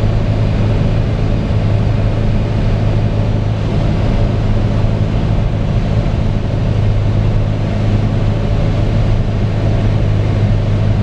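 Piper Cherokee 180G's four-cylinder Lycoming O-360 engine and propeller droning steadily, heard from inside the cockpit.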